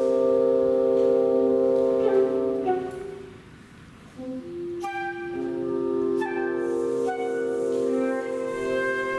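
Live contemporary concert music: sustained chords of held instrumental notes that die away about three seconds in, followed by new long notes entering one after another and building into a fresh chord.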